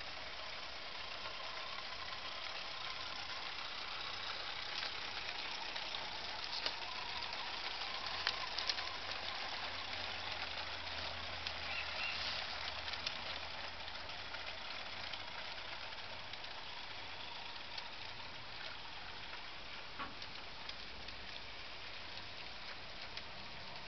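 Live-steam model locomotive running along a garden railway: a steady hiss with scattered sharp clicks from the wheels on the rails. It grows louder as the train passes close by around the middle, then eases as it runs away.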